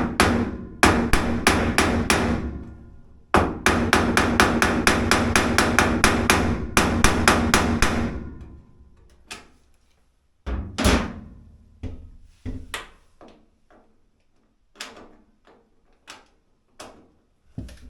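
Hammer tapping rapidly on a screwdriver, about five strikes a second, while it is turned to break free a tight Phillips screw holding a dryer's front panel. There is a short break about three seconds in, then a long run of taps that stops about eight seconds in, followed by scattered quieter knocks.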